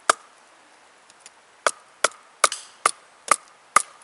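Wooden baton striking the spine of a Bark River Sahara A2-steel knife as it is batoned down through a stick to split it. There is one sharp knock, then, after a short pause, six more at a steady pace of about two and a half a second, each with a brief ring from the blade.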